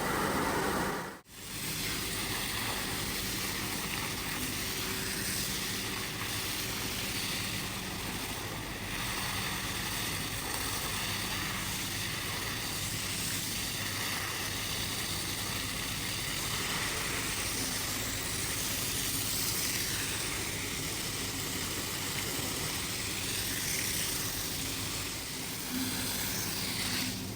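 A steady machine hiss with a low hum underneath, cutting out for a moment about a second in and then running on evenly.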